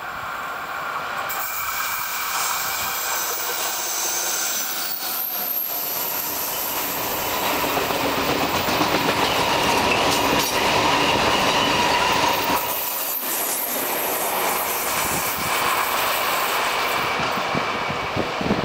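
Freight train of covered steel-coil wagons passing close by. The rolling wheel noise builds as it approaches and is loudest about halfway through, with a high squeal from the wheels over it.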